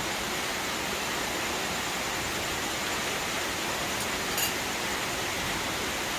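Steady, even hiss of noise, with a brief light clink about four seconds in.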